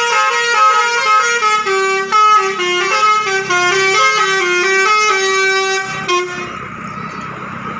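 A tour bus's Basuri telolet horn, a multi-tone musical air horn, playing a melody of held notes that step up and down in pitch. It cuts off about six seconds in, leaving a steady rushing noise.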